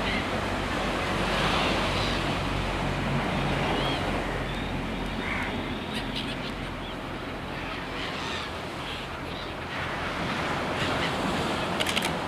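Steady rushing outdoor noise like surf or wind, with a few faint short chirps and a handful of clicks, the sharpest near the end.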